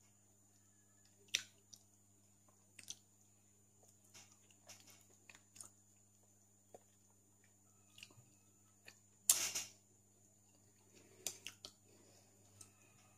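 Chewing and mouth smacks of a person eating durian flesh: scattered small clicks, with a louder burst about nine seconds in, over a faint steady hum.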